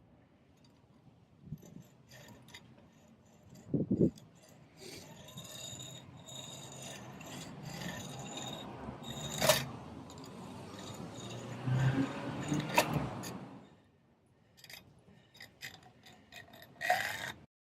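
Metal padlock being handled and scraped: scattered clinks and knocks, with a longer stretch of rubbing and scraping in the middle, then a brief lull and more light clicks near the end.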